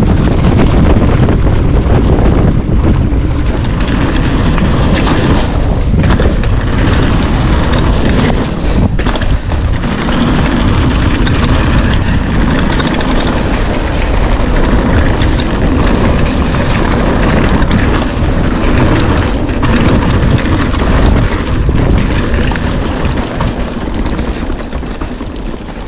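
Wind buffeting the microphone and the tyres of a full-suspension mountain bike rumbling over the trail on a fast descent, as a loud, continuous rush.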